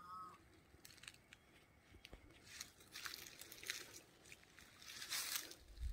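Rustling and crunching of dry grass and reeds underfoot, with scattered crackles that thicken about halfway through and peak near the end.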